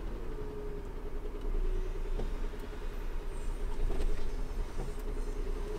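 Diesel engine of a Renault car-transporter lorry running at low speed through a tight turn, heard from inside the cab: a steady low rumble with a held hum and a few faint clicks.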